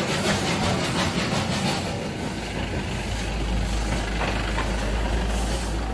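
Darjeeling Himalayan Railway B-class steam locomotive hauling the toy train uphill, heard from inside a coach: a steady noisy hiss and rumble, with a deep low rumble coming in about two seconds in.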